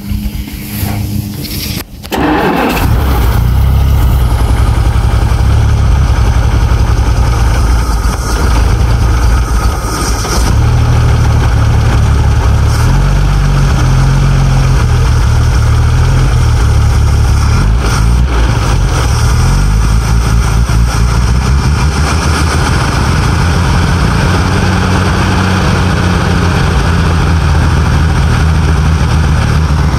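1948 Bedford truck's six-cylinder petrol engine firing up about two seconds in and then running, its speed rising and falling. It is running only on fuel being poured down the carburettor throat from a bottle, on its first start after a rebuild.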